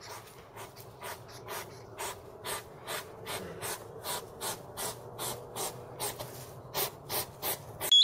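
Hedgehog huffing and sniffing: a steady run of short, sharp breaths, about two to three a second, growing louder near the end.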